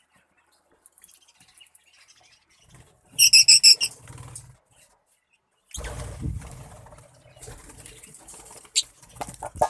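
Lovebirds chirping: a burst of about six loud, rapid high chirps about three seconds in, with fainter chirps before it. In the second half there is a stretch of noisy rustling with a low rumble and a few sharp clicks near the end.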